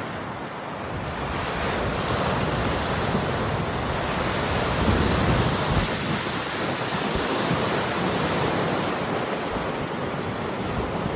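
Storm waves on Lake Superior breaking on the shore in a continuous heavy surf, with a slight swell about halfway through. Strong wind blows through it and buffets the microphone.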